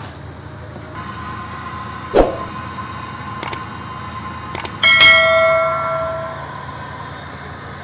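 Subscribe-button animation sound effects: a thump, two quick pairs of mouse clicks, then a bright bell chime that rings out and fades over about a second and a half, the loudest sound here. A steady low hum runs underneath.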